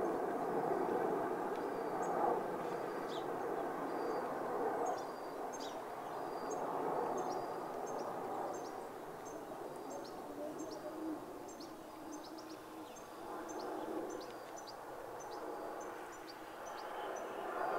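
Distant jet engine noise from the Red Arrows' BAE Hawk T1 jets, slowly swelling and fading as the formation loops, with small birds chirping repeatedly over it.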